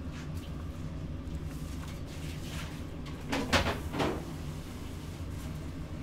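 Steady low background hum, with a short noisy scrape-and-knock of something being moved or shut about three and a half seconds in, and a smaller one half a second later.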